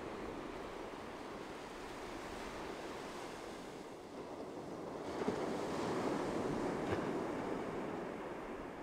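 Atlantic Ocean surf washing onto a beach in a steady rush of water noise. About five seconds in a wave breaks and the wash grows louder, then eases off near the end.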